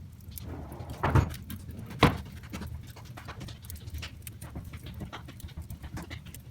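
Wood fire crackling in a fireplace, with frequent small snaps over a low rumble of the flames and two louder pops about a second apart near the start.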